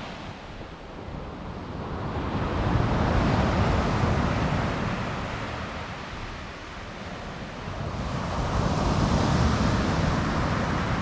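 Ocean surf washing onto the beach, the rush of the waves rising and falling twice.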